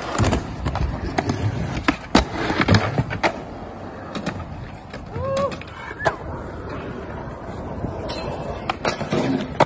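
Skateboard wheels rolling on rough concrete, with a string of sharp clacks and knocks from the board.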